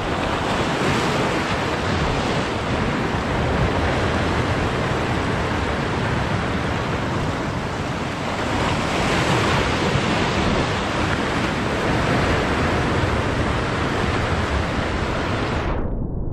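Ocean surf breaking and washing over shoreline rocks, a dense rush of water that swells and eases every few seconds.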